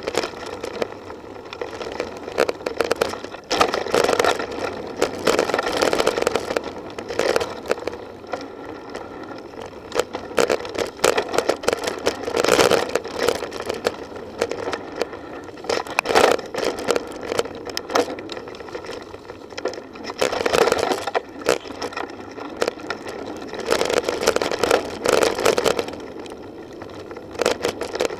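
Mountain bike ridden fast over a dirt singletrack: a steady rush of riding noise that surges and eases, full of rapid rattles and knocks as the bike hits roots and rocks.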